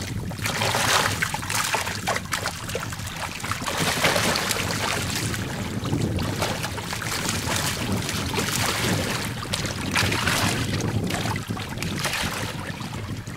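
Lemon sharks thrashing at the surface, splashing and churning the water in repeated surges every couple of seconds, with wind noise on the microphone.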